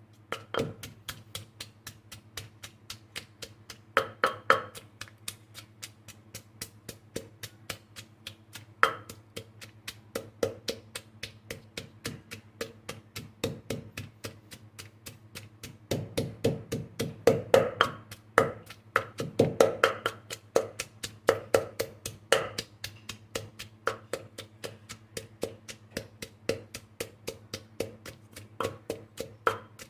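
Steady run of short knocks on something wooden, about three a second, with louder bursts now and then, over a low steady hum.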